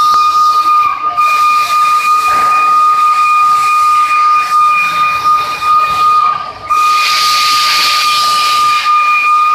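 The EIR 21 steam locomotive's whistle blows one long, steady high note. It breaks off briefly about six and a half seconds in, then sounds again with a louder hiss of escaping steam.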